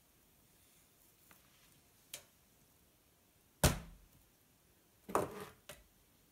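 A plastic squeeze bottle of pancake batter set down on a table with a single thunk about halfway through, then a shorter clatter a little later as a spatula is picked up off the table. A faint click comes before the thunk.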